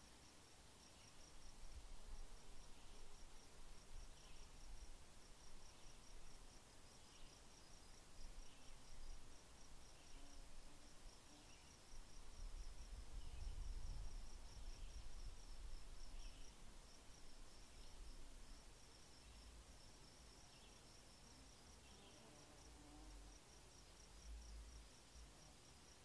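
Faint insect chirping: a steady run of short, high pulses, about four a second, with softer, lower chirps about once a second. A low rumble swells and fades around the middle.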